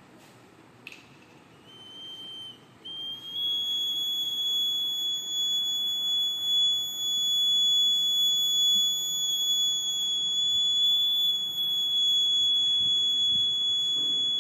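Electronic buzzer of a homemade water-tank-full alarm sounding one steady high-pitched tone, which comes on after a click about a second in and holds without a break. The buzzer signals that the water has reached the full level in the tank.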